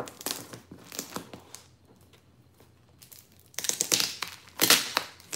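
Packing tape being picked at and peeled off a heavily taped box: scratchy crackling in the first second or so, a short lull, then a louder stretch of ripping and crackling from about three and a half seconds in.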